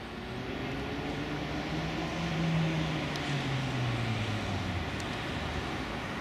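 A vehicle passing on the street, its tone dropping in pitch as it goes by, over steady city traffic noise. It is loudest a little after two seconds in.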